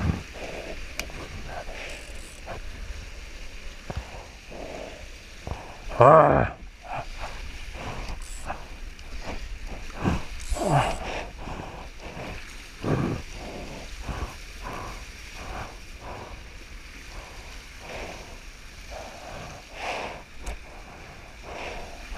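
Water rushing and splashing against the hulls of a Hobie 16 catamaran sailing fast through surf, with wind buffeting the microphone. A few short, loud whoops from the crew break in, the loudest about six seconds in and another falling one near eleven seconds.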